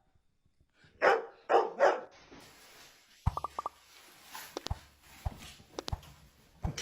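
A dog barking: three short barks in quick succession about a second in.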